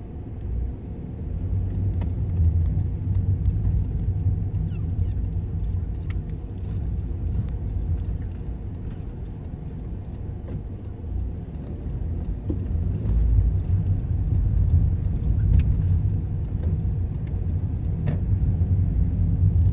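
Car driving off from a standstill and running along a town street, heard from inside as a steady low engine and road rumble that swells about a second and a half in and again around thirteen seconds in, with faint scattered clicks.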